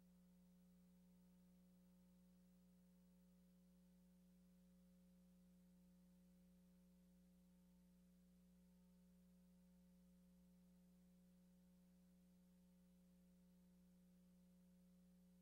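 Near silence apart from a faint, steady low electrical hum.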